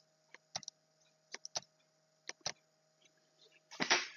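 A few faint, sharp clicks at irregular intervals, then a louder cluster of clicks near the end.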